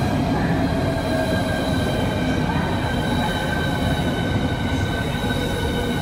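Southeastern Class 395 high-speed electric multiple unit running past along the platform: a steady rumble of wheels on rail under a high electric whine of several tones that slowly drop in pitch.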